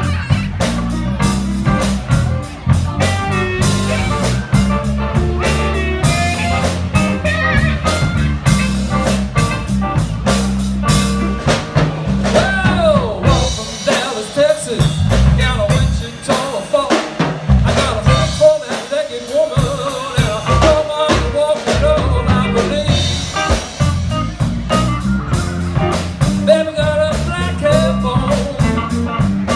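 Live electric blues band playing an instrumental passage: electric guitars, electric bass and drum kit, with a harmonica played into cupped hands. About halfway through, the bass and bass drum drop out for several seconds, then the full band comes back in.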